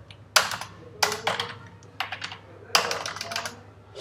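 Computer keyboard being typed on: a handful of separate keystrokes at an uneven pace.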